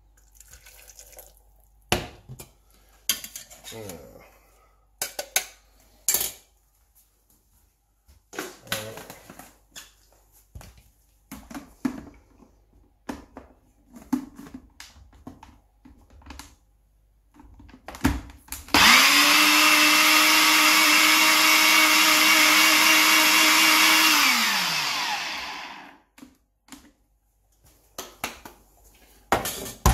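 Personal blender blitzing roasted vegetables into gravy: the motor starts suddenly about two-thirds of the way in, runs steadily at one pitch for about five seconds, then winds down. Before it come scattered knocks and clicks as the cup is filled and fitted onto the base.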